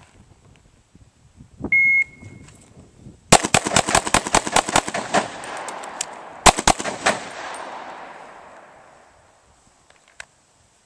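Shot timer beeps once, then about a second and a half later a Glock pistol fires a rapid string of shots, stops for about a second for a magazine reload, and fires a short second string: ten rounds in all for the Triple Nickel drill. The shots echo off the rock face and the echoes trail away over a couple of seconds.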